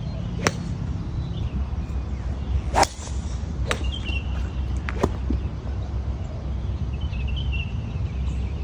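A few sharp cracks like golf balls being struck, four in all, the loudest about three seconds in, over a steady low wind rumble on the microphone. A bird chirps twice.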